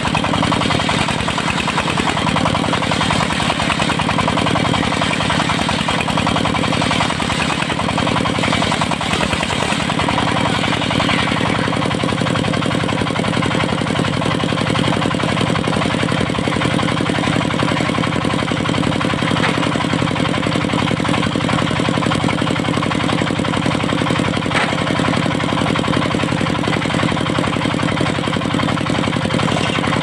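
Diesel-powered, belt-driven circular saw of a mobile sawmill running steadily. For roughly the first ten seconds the big disc blade is ripping lengthways through a teak log; after that the engine and blade run on more evenly.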